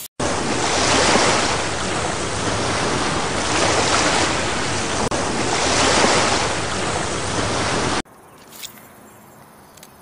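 Ocean surf sound effect: a loud, steady rush of waves that swells and eases, starting abruptly and cutting off sharply about eight seconds in, leaving only a faint background hiss.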